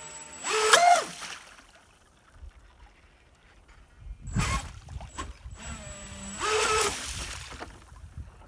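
Radio-controlled model jetboat accelerating in short bursts: its motor gives a rising whine about a second in and again near the end, with a splashy rush of water between and the shallow stream trickling in the quieter gaps.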